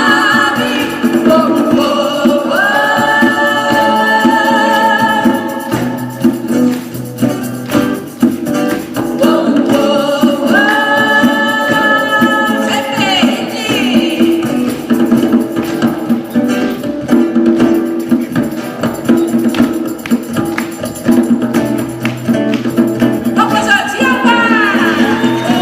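A live band playing: a singer holds long notes over a steady beat, with instrumental passages between the sung phrases.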